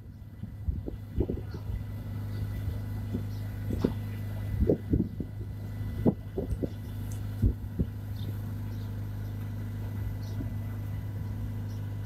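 An engine running steadily with a low hum, with scattered dull knocks over it.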